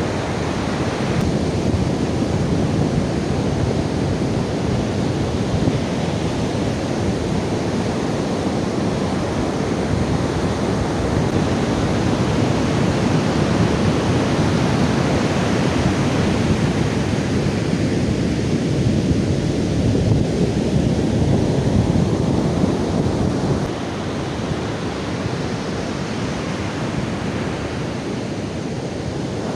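Strong wind rushing and buffeting over the microphone, mixed with surf on the beach. It eases a little near the end.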